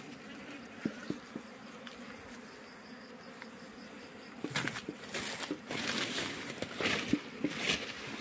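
Wild Asian honeybees (Apis cerana) buzzing around a mesh-covered wooden box, faint and steady at first. From about halfway, louder rustling with sharp knocks comes in over the buzzing.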